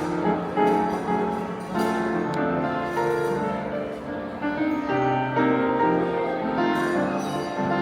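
Gentle piano music, one note or chord after another.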